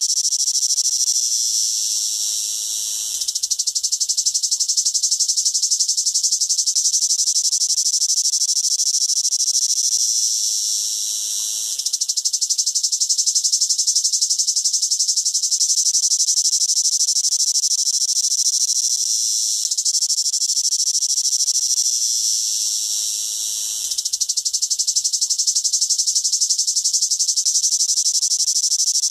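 Cicada singing: a loud, steady, high-pitched buzz that fades for a moment and then builds back up three times, roughly every ten seconds.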